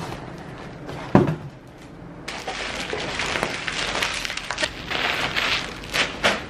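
A thump about a second in, then a dense crackle of packing tape and cardboard being cut with scissors and the box flaps pulled open, with many sharp little snaps.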